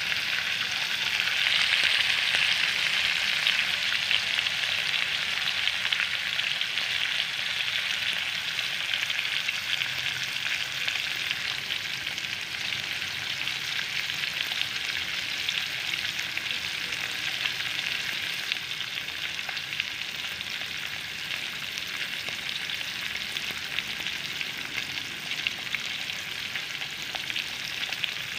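Pieces of pork liver frying in hot oil in a pan: a steady sizzle with fine crackling, loudest a couple of seconds in and slowly easing off.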